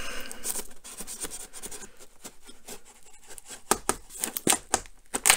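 A small knife blade slicing through packing tape along the edge of a cardboard parcel: a run of short scratchy clicks and scrapes that grow louder near the end.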